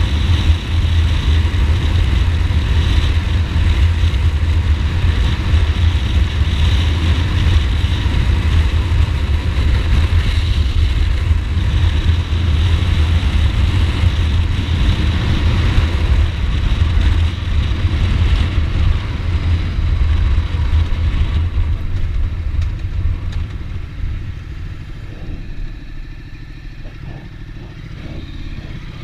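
Ducati Multistrada motorcycle under way, its engine running steadily at speed, then getting quieter over the last several seconds as the bike slows.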